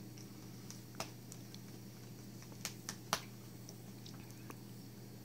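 Quiet room tone with a steady low hum, broken by a few short, sharp clicks: one about a second in, then three close together about two and a half to three seconds in.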